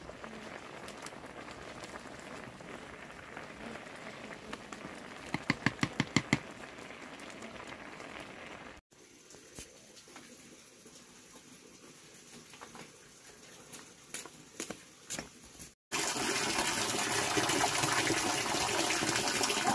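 Water gushing loudly, pouring or running, in the last few seconds, after two quieter cut-together stretches of hiss. The first of those holds a quick run of about eight sharp knocks; the second holds a few scattered clicks.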